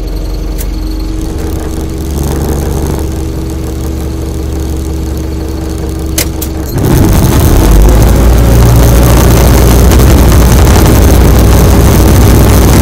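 Vehicle engine idling with a steady hum; about seven seconds in, a much louder rough rumble takes over and holds.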